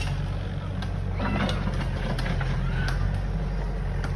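Diesel engine of a tracked excavator running steadily: a constant low hum.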